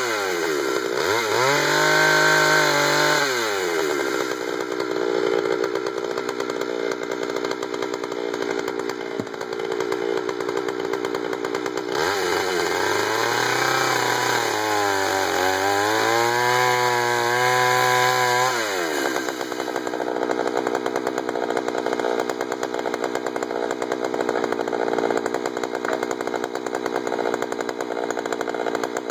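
Jonsered 2091 two-stroke chainsaw, 93 cc, ripping pine lengthwise in a mini mill. Its engine pitch dips and recovers repeatedly as it labours in the cut, and for about the last ten seconds it runs more steadily.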